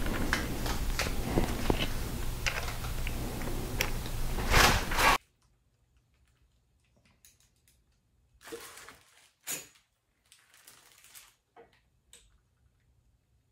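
Quick small metallic clicks and taps of hand tools and parts working the connecting-rod bolts of a bare LS engine block, over a steady low hum. They cut off abruptly about five seconds in, and a few brief soft rustles and taps follow.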